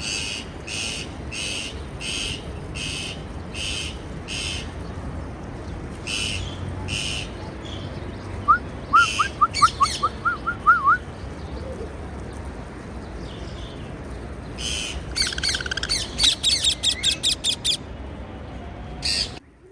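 Parakeets calling: short, harsh chirps repeated at an even pace, then a quick run of lower rising whistled notes. Near the end comes a fast volley of sharp chirps, and the sound cuts off abruptly.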